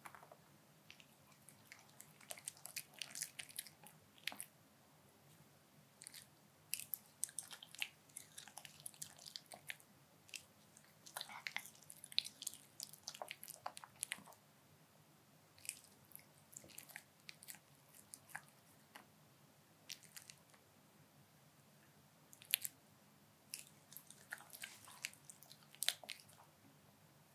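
A Pomeranian eating close to the microphone from a dish of dog-safe black bean noodles and kimchi: runs of quick chewing clicks with short pauses between.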